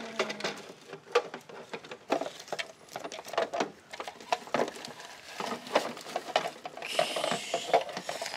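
Irregular clicks, knocks and rattles of plastic toy garbage cans and toy trash being handled and loaded into a toy garbage truck.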